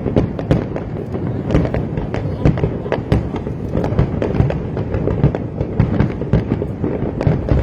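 Fireworks display going off in a dense barrage: many overlapping bangs, several a second, without a break.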